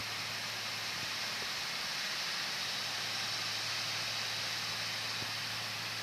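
Cotton picker running steadily as it works along the rows: an even hiss with a low hum underneath.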